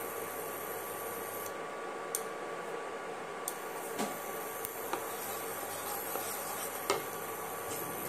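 Steady background hum with a few faint, light clicks and ticks scattered through the middle.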